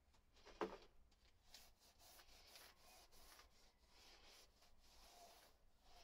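A sponge smearing bead sealer paste onto a rubber tyre bead, making faint repeated rubbing strokes. A single knock comes just after the start.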